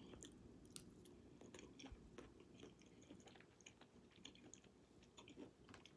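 Faint chewing: scattered small, soft mouth clicks and ticks of someone eating.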